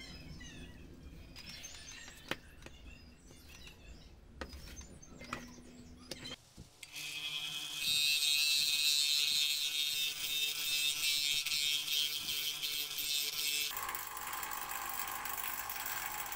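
Light handling and scraping sounds at first. About seven seconds in a benchtop belt sander starts with a steady hum, and from about eight seconds a small wooden wheel pressed against the sanding belt gives a loud, hissy sanding noise. Near the end the sanding turns lower and softer.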